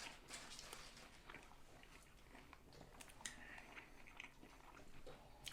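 Faint close-up chewing of a sub sandwich: soft wet mouth clicks and crackles from bites being chewed.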